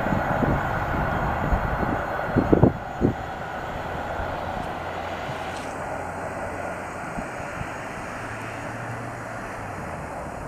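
Passenger train rolling away on the rails, its rumble fading steadily as it recedes, with a few thumps about two and a half to three seconds in.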